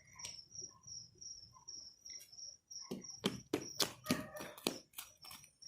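Crickets chirping, a steady high pulsing trill. About three seconds in, a run of sharp crackling clicks lasts for roughly two seconds.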